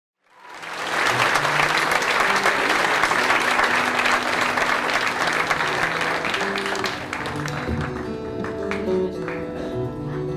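Audience applauding, fading in at the start and dying away after about seven seconds, as plucked guitar and bass notes begin to sound from the stage.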